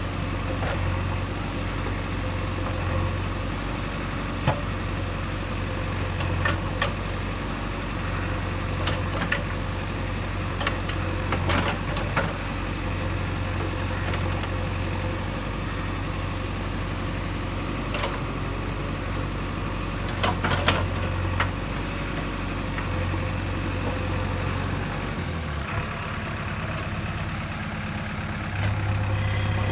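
JCB 3DX backhoe loader's diesel engine running steadily while the backhoe works, with occasional sharp clanks and knocks. Near the end the engine note changes and grows louder.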